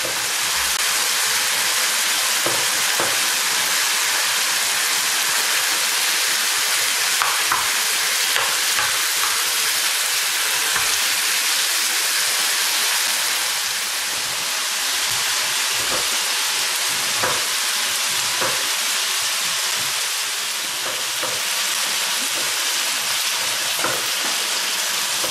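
Chicken thigh pieces in a marinade sauce sizzling steadily in hot oil in a frying pan, stirred now and then with a silicone spatula, with a few light taps.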